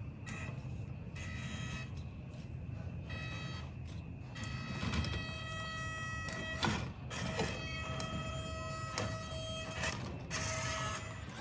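Small electric motor of an RC crawler truck whining in spurts as the throttle is applied and let off, with a few knocks from the truck on the trail near the middle.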